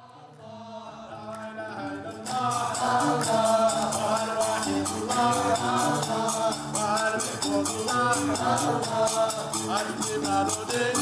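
Gnawa music: metal qraqeb castanets clacking in a fast, even rhythm over the low plucked bass notes of a guembri, with a melody line that may be singing. The music fades in, and the castanets come in about two seconds in.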